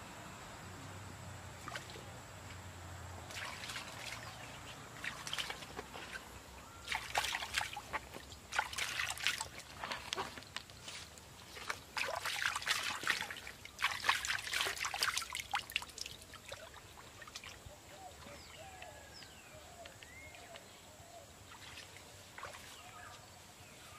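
Water splashing and sloshing in a shallow stream as a banana flower is rinsed by hand, in several bursts, settling to a quieter trickle after about 16 seconds.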